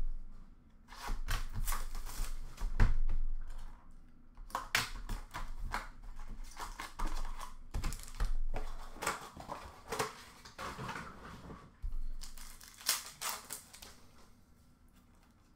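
Trading card packs being opened and sorted by hand: wrappers crinkling and tearing, and stiff cards shuffled, slid and tapped in quick irregular bursts, quieter toward the end.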